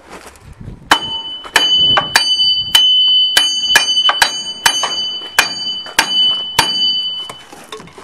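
About a dozen hammer blows on the steel rear axle of a Case backhoe, each leaving a high metallic ring, as the axle is knocked out of its housing to reach the worn wheel bearings. The blows come a little under two a second and stop near the end, with the ring fading after the last one.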